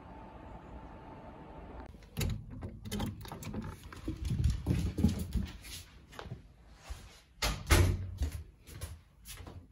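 About two seconds of steady outdoor background noise with a faint hum. Then comes a string of irregular knocks and thumps, footsteps on a wooden floor mixed with handling noise, loudest near the end.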